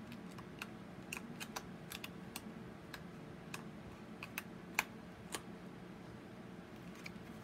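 Light, irregular clicks and taps of craft supplies being handled, about twenty in all, with one sharper click a little under five seconds in. A faint steady hum runs underneath.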